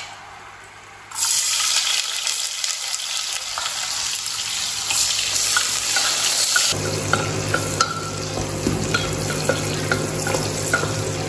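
Sliced onions hitting hot oil in a pressure cooker and sizzling loudly, starting about a second in, while a spatula stirs them with light scraping taps against the pot. In the second half the sizzle softens and a low hum sits underneath.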